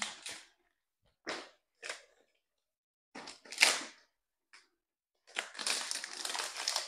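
Fresh banana leaves rustling and crackling in several short bursts as they are folded and pressed down over a cooking pot to cover it. The longest stretch of rustling comes near the end.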